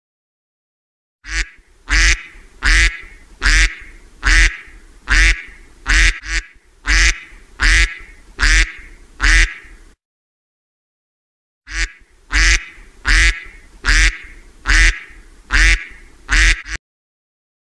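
A duck quacking, loud short quacks repeated evenly a little more than once a second. The quacks come in two runs, broken by a pause of about two seconds midway.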